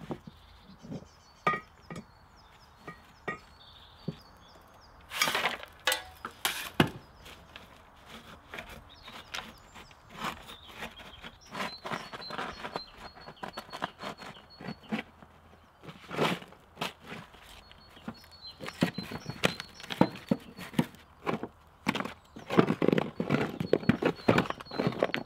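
Irregular knocks, cracks and clatters of hard pieces being handled and knocked together, in short flurries and growing denser toward the end.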